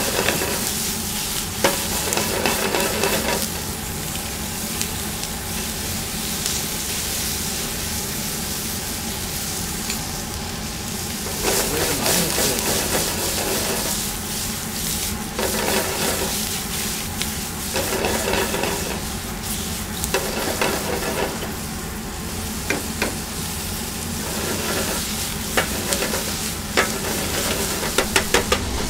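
Food frying and sizzling in a hot pan, a steady hiss with louder stretches every few seconds and a few sharp clicks near the end.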